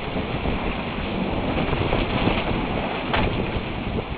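Thunderstorm rain falling steadily, a dense hiss with a low rumble underneath that slowly eases.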